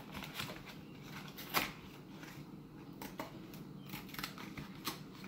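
Small cardboard Lost Kitties milk-carton blind box being torn open along its perforated tear strip by hand: scattered short crackles and taps of card, the loudest about a second and a half in.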